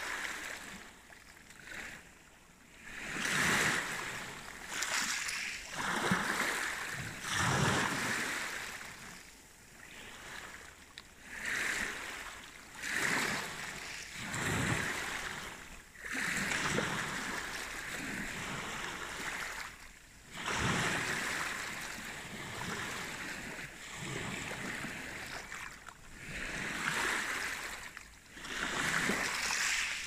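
Small sea waves washing onto the shore, each wash swelling and fading every couple of seconds in an uneven rhythm.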